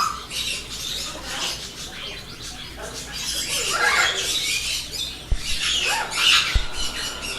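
Many caged pet-shop birds chirping and chattering with occasional squawks, the calls short, high and overlapping. A few dull knocks sound in the second half.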